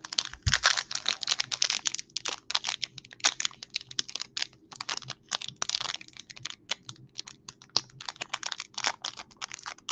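Foil wrapper of a Pokémon booster pack crinkling and crackling in the hands as it is handled, a fast irregular run of sharp crackles throughout.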